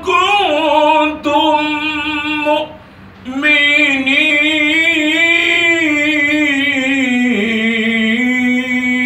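A man chanting Quran recitation (tilawah) in long, ornamented melodic phrases. One phrase ends about two and a half seconds in; after a short breath, a long phrase follows that wavers, then steps down in pitch to a low held note near the end.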